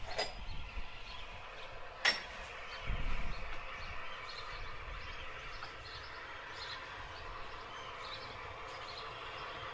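Bulleid Battle of Britain class three-cylinder steam locomotive working steadily toward the listener, still distant and faint, with small bird chirps over it. Two sharp clicks stand out, one at the very start and one about two seconds in, and a brief low rumble follows about three seconds in.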